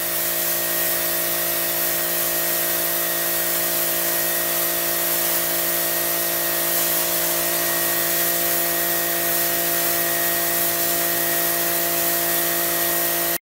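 Pressure washer jet spraying onto concrete, cutting away dirt and grime: a steady hiss of high-pressure water with a constant hum from the machine underneath.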